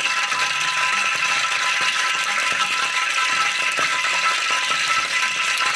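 Hot cooking oil sizzling and crackling steadily in a stainless steel pot, with a dense hiss full of rapid tiny pops as it comes up to frying heat.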